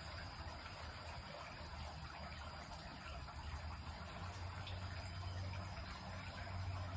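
Steady background hiss with a low hum underneath, the hum growing louder in the second half.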